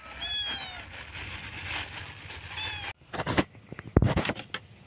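Two short falling cat meows over a steady noisy background. After a sudden break about three seconds in, a run of irregular knocks and clatters as cats bat at a cut-open plastic bottle with a kitten inside.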